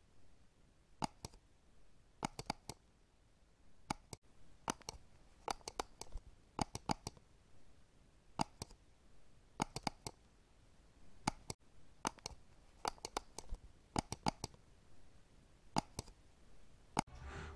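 Faint typing keystroke clicks, singly and in quick little clusters, at an uneven pace with short pauses between.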